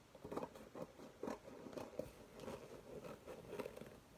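Scissors or a blade scraping and cutting into a small cardboard box, an irregular run of short scratchy snips and crunches.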